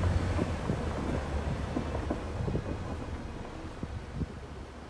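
Vehicle driving over a rough dirt road, heard from inside the cab: a steady low rumble of tyres and engine with scattered knocks and rattles from the bumps, growing quieter toward the end.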